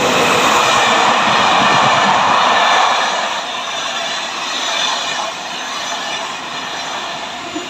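A train moving along the station platform: a loud rushing rumble that is strongest for the first three seconds, then eases to a steadier noise.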